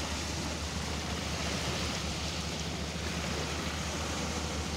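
Small sea waves washing in and breaking on a sandy shore among rocks: a steady rush of surf with a low rumble underneath.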